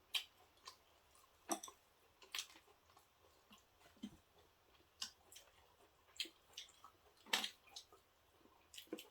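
Faint eating sounds: irregular soft clicks and smacks of a person chewing food close to the microphone, a few a second, with one louder smack about seven seconds in.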